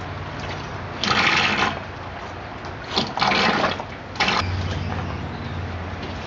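Water splashing and pouring in three short bursts, over a steady low hum.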